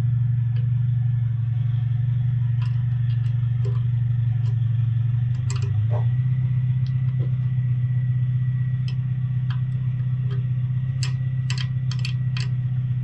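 A steady low mechanical hum, stepping slightly in pitch about five seconds in. Over it, scattered metallic clicks and taps from a ring spanner working a rusted bolt on a motorcycle brake master cylinder clamped in a vise, most of them bunched near the end.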